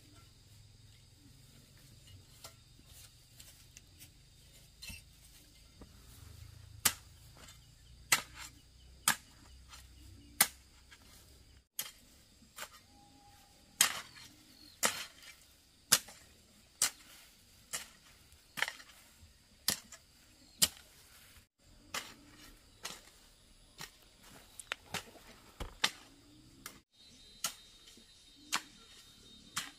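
A hoe striking into loose soil in a steady rhythm, a sharp strike about once a second.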